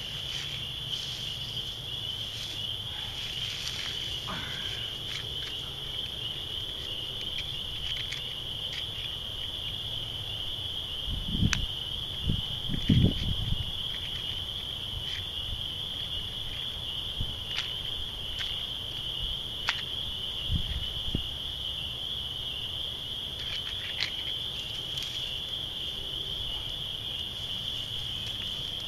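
A steady, high-pitched chorus of evening insects trilling without a break. There are scattered faint clicks, and a few low thumps about halfway through.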